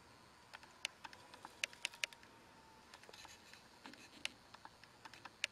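Faint, irregular small clicks and ticks as a woodburning pen and a carved wooden duck head are handled, with a faint steady whine that fades out about three seconds in.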